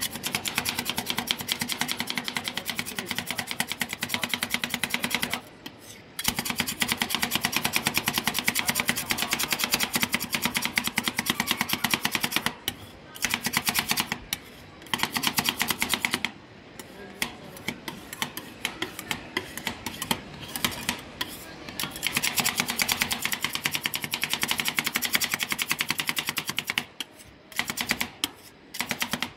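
Two metal spatulas chopping ice cream base on the frozen steel cold plate of a rolled-ice-cream counter: a fast clatter of metal-on-metal taps that stops briefly several times and thins out near the end.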